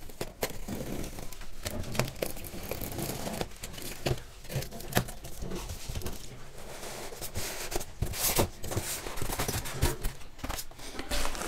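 Utility knife slitting the packing tape on a cardboard TV carton, then the cardboard flaps pulled open and plastic packaging crinkling: an irregular run of scrapes, rustles and short clicks.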